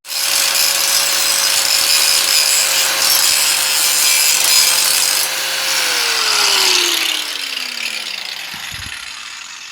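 Electric power tool running at full speed, then switched off: its motor whine drops steadily in pitch and the sound fades as it winds down.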